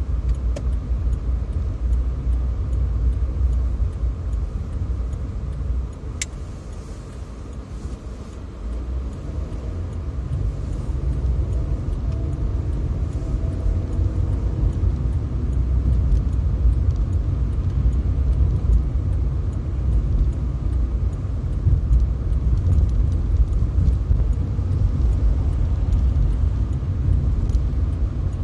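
Low rumble of a car driving, engine and tyre noise steady, easing off around six seconds in and building again from about ten seconds. A single sharp click about six seconds in.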